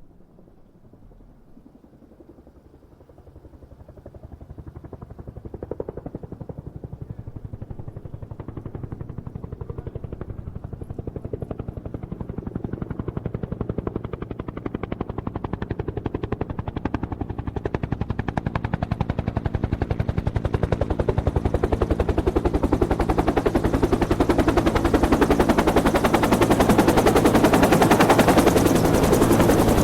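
Helicopter flying toward the listener, its rotor blades making a rapid, even chop over the engine's steady note, growing steadily from faint to loud as it approaches.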